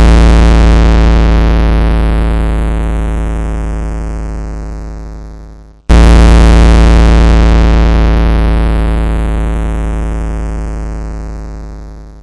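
Loud synthesizer chord hit with deep bass, fading slowly, struck again about six seconds in and fading out near the end: part of an EAS-style emergency alarm soundtrack.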